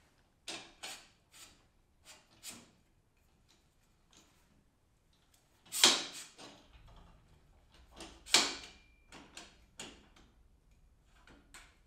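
Shifter kart's rear axle being slid through its bearings by hand, checking that it runs true to the third bearing: scattered light metallic clicks and knocks, with two louder clunks about six and eight seconds in, the second followed by a brief ring.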